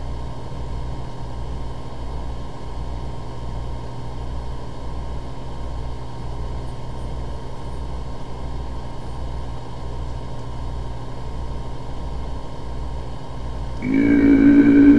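Steady low electrical hum with a faint throbbing pulse and a faint high whine. About a second before the end, a didgeridoo drone starts suddenly, loud and steady, with a low stacked tone and a higher overtone band above it.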